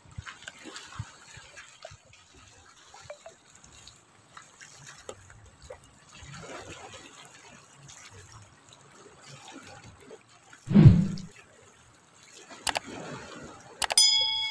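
Small waves lapping and splashing irregularly against the rocks of a sea breakwater, with one louder thump about 11 seconds in. Near the end a short chiming sound effect plays.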